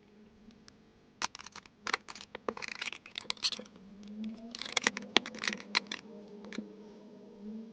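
Masking-tape packaging being torn open and crinkled by hand, with sharp crackles and rustles. There are two bursts, the first starting a little over a second in and the second around four and a half seconds in.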